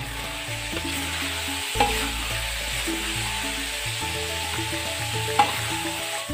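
Food sizzling as it is stir-fried in an iron wok, a metal spatula stirring and scraping through it, with two sharp clanks of the spatula on the pan: about two seconds in and again near the end.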